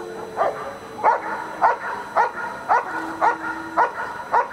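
German Shepherd barking at a helper holding a protection sleeve: eight sharp, evenly spaced barks, about two a second.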